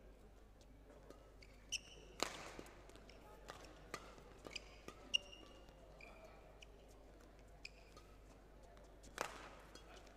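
Badminton rally: several sharp racket strikes on the shuttlecock, the loudest about two seconds in and near the end, each ringing briefly in the hall. Short high squeaks of court shoes on the floor come between the hits.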